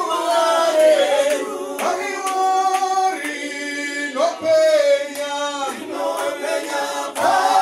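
A small group of men and women singing a Shona hymn together without instruments, one man's voice leading on a microphone.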